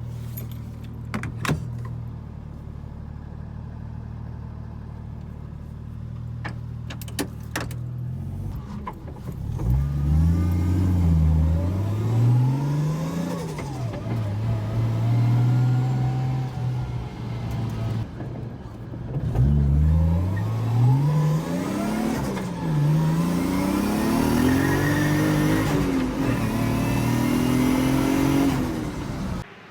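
Toyota 1JZ VVTi inline-six in a Mazda FC RX-7 running steadily, then revving up hard through the gears in two runs, its pitch rising on each gear and dropping at each shift, heard from inside the car. It pulls cleanly, its heavy misfire under load cured by new copper spark plugs.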